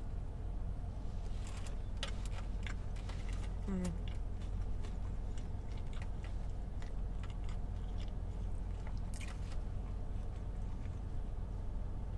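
A person biting into a taco and chewing it close to the microphone, with scattered wet mouth clicks over a steady low hum.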